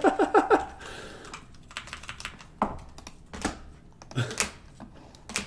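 Typing on a computer keyboard: irregular clicks and taps, a few a second.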